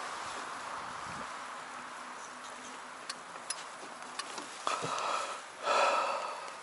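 A few faint, sharp ticks, then a short louder rustling noise near the end, over a steady faint hiss.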